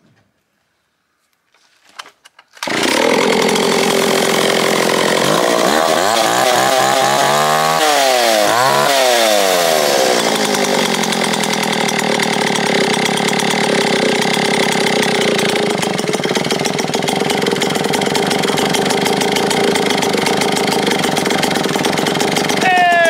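Vintage 1970s Stihl S10 two-stroke chainsaw catching about two and a half seconds in and running, revved up and down a few times, then held at a steady speed. Its low-speed carburettor jet has just been turned out another quarter turn to richen it, because it kept dying lean when run without choke.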